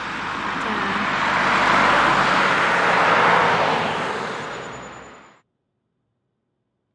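Car road and tyre noise that swells to a peak and then fades away, cutting to silence a little past five seconds in.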